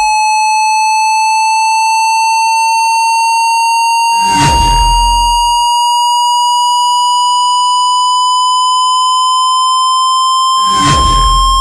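Hearing-test sine tone: a single pure, steady tone gliding slowly upward in pitch. Twice, about four seconds in and near the end, a short noisy burst with a deep rumble sounds over it.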